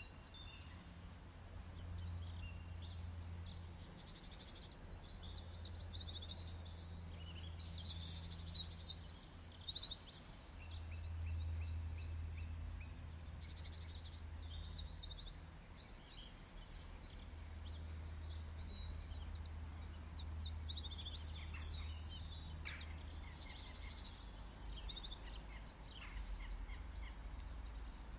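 Small birds chirping, with quick high trills coming several times, over a low hum.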